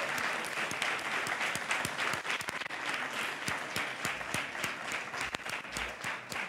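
An audience applauding, a dense patter of many hands clapping that gradually thins out toward the end.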